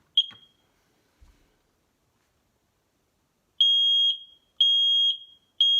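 Newly installed combination smoke and carbon monoxide detector on test: one short high-pitched chirp as the test button is pressed, then about three and a half seconds in it sounds its fire alarm, three loud high-pitched beeps each about half a second long, about one a second.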